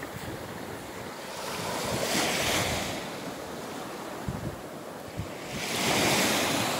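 Small waves breaking and washing up a sandy beach: the surf hiss swells twice, about two seconds in and again near the end. Low buffeting of wind on the microphone runs underneath.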